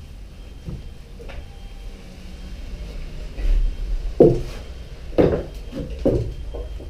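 A series of short knocks and thumps over a low rumble, the loudest about four and five seconds in.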